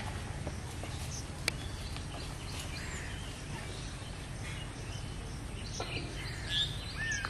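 Rural outdoor ambience: a steady low rumble with a few sharp clicks, and a bird chirping near the end.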